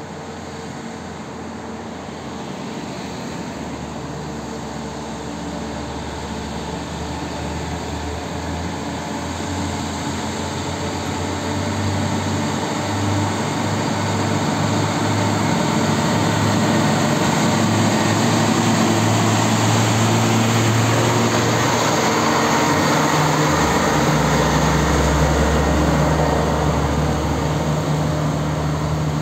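Mitsubishi Fuso cargo truck's diesel engine running as the truck approaches and passes close by, growing steadily louder, with a deeper low hum coming in near the end.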